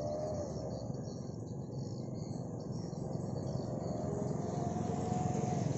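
Mitsubishi L300 pickup with a wolf-whistle ('serigala') exhaust driving past, its engine and exhaust a low steady running that grows a little louder near the end. Insects chirp high above it.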